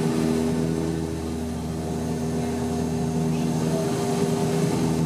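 Cabin drone of a Bombardier Dash 8-100 turboprop in flight, heard from a seat beside the propeller: a steady hum of several even propeller tones over the rush of airflow.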